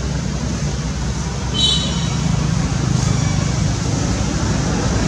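Steady outdoor background rumble with hiss. One brief, high-pitched chirp or squeak comes about one and a half seconds in.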